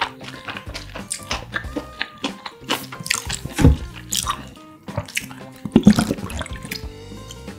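Drinking from a plastic bottle: swallows and liquid sounds, with a couple of sharper loud sounds about three and a half and six seconds in, over steady background music.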